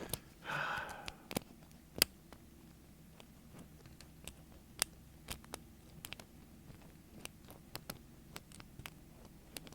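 Irregular small metallic clicks and ticks of a lock pick and tension wrench working the pin tumblers of a door knob lock, with a short rush of noise about half a second in. Underneath, a faint steady rush of water running in the house plumbing from a shower.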